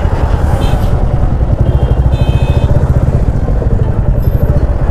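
Motorcycle engine running at low speed in crawling traffic, a dense, pulsing low note heard from the rider's seat. Two brief, faint horn toots from nearby traffic come about two seconds in.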